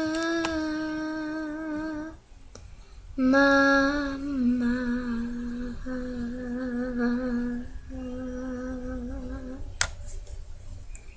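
A girl humming a slow, wordless tune in long held notes with a slight waver, pausing briefly about two seconds in. A single sharp click comes near the end.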